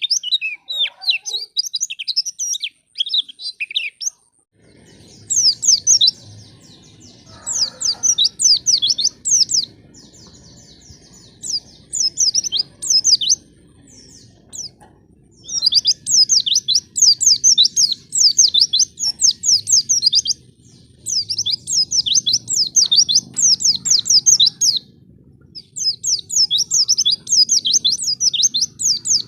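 White-eye (pleci) song: long runs of quick, high chirps in bursts of a few seconds, broken by short pauses. A faint low hum sits underneath from about four and a half seconds in.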